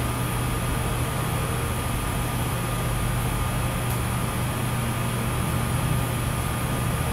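Steady low hum with a faint high whine, even and unchanging: an air conditioner running in the room.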